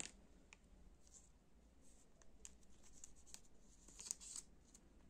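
Near silence with a few faint scattered clicks and soft rustles: trading cards being handled and turned over.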